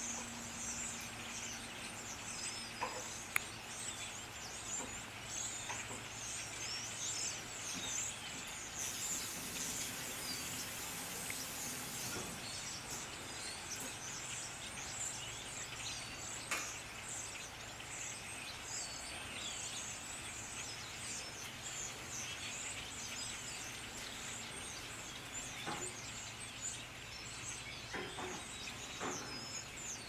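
Outdoor ambience of small birds chirping continuously and high-pitched, over a faint low steady hum, with a few sharp ticks scattered through.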